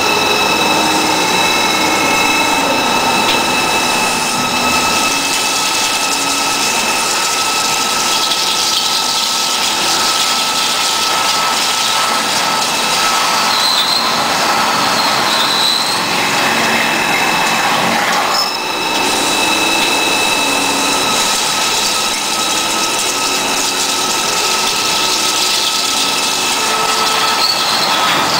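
CNC drilling center's spindle driving a 24 mm carbide drill with oil fed through the tool into a stack of four plates. It makes a steady high-pitched whine over cutting noise, with a brief dip about two-thirds of the way through.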